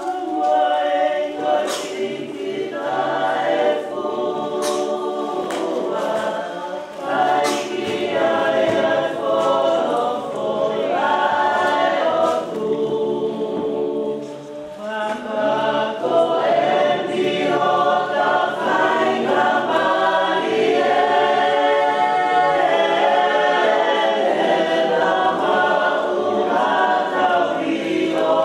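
A choir singing in several voices, with long held notes, dipping briefly about halfway through.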